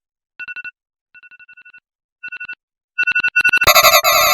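iPhone alarm tone played as edited variations: short groups of quick electronic beeps at one steady pitch, some soft and some louder. Near the end a much louder, fuller version of the tone with more layered pitches cuts in.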